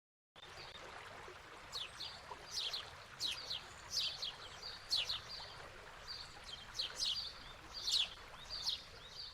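Birds chirping: a string of short, sharp notes falling in pitch, repeated about every half second, over a faint steady hiss.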